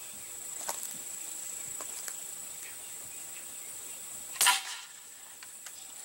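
A single shot from a Crosman 760 Pumpmaster pump-up air rifle about four and a half seconds in: a sharp pneumatic crack with a short whoosh.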